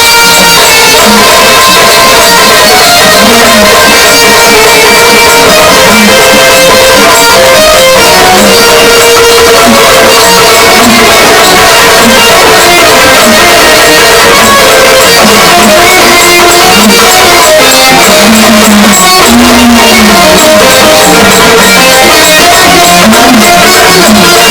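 Loud instrumental folk music led by a strummed plucked-string instrument, playing steadily without a break.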